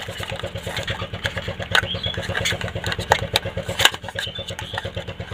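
An engine running steadily with a fast, even pulse, under a few sharp clicks and taps from the cardboard mic box and its foam insert being handled.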